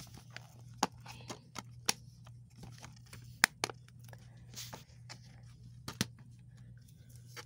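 Handling noise: scattered clicks and light taps of plastic DVD cases being picked up and set down, over a faint steady low hum.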